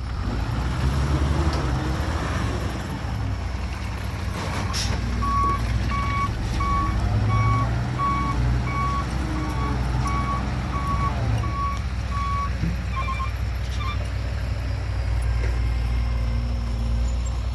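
Heavy diesel dump truck engine running, with its reversing alarm sounding a steady series of single-pitch beeps, about one and a half a second, from about five seconds in to near the end.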